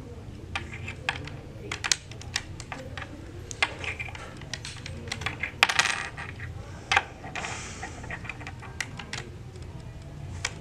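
Typing on a Lenovo ThinkPad laptop keyboard: irregular key clicks and taps, with a few louder clacks a little past halfway.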